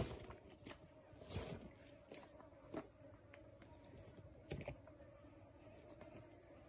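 Komodo dragon gulping down a small animal: a few short, faint crunches and scrapes, the clearest right at the start and about one and a half, three and four and a half seconds in, over a faint steady hum.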